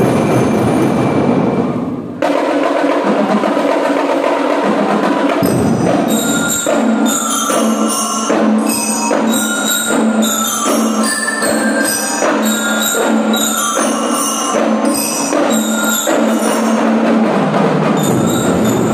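School drum and lyre corps playing: bell lyres ring a melody of quick, bright struck notes over percussion. The dense, loud playing breaks off about two seconds in, and the lyre melody comes in about five seconds in.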